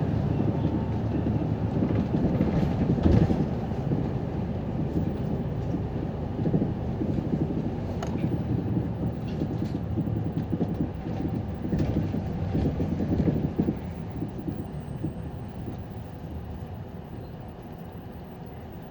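Interior running noise of a city bus on the road: a steady low engine and road rumble with scattered light rattles, dying down over the last few seconds.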